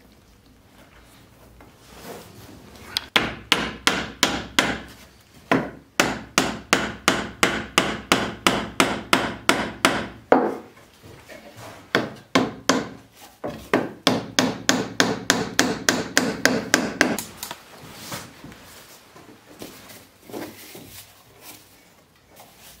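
Hammer blows on wood in quick even runs of about three strikes a second. The first run starts about three seconds in, there is a short pause about ten seconds in, and a second run stops about seventeen seconds in. A few softer knocks follow.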